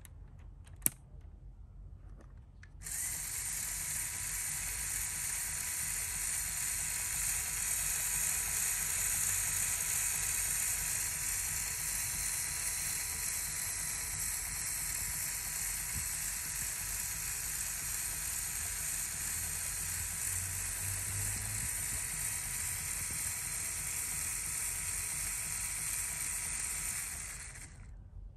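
LEGO Technic RC chassis's electric motor running the drivetrain, a steady whir of the motor and plastic gears that starts about three seconds in and stops near the end. A sharp click comes about a second in.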